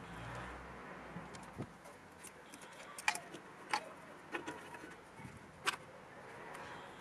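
Scattered light metallic clicks and clinks, about five sharp ones through the middle, from a hand tool and fingers working on the BMW E38 boot-lid hydraulic pump as its purge bolt is screwed in after bleeding the air out.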